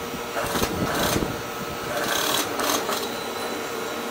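Juki industrial sewing machine stitching in a few short runs, topstitching the folded edge of a denim belt loop.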